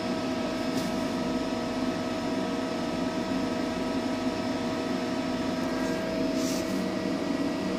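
Steady hum of a powered-up CNC lathe standing with its spindle at rest, a constant tone running through it.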